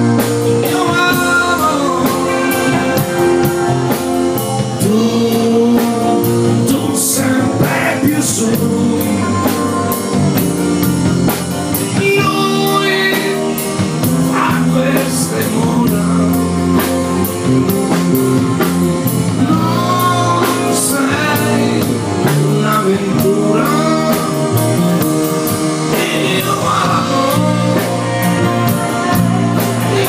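Live pop band playing a song with a singer over keyboard, acoustic and electric guitars and a drum kit with cymbals, run through at a sound check.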